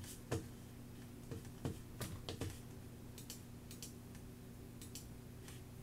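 Scattered light clicks and taps of someone working a computer, irregular and about a dozen in all, over a steady low electrical hum.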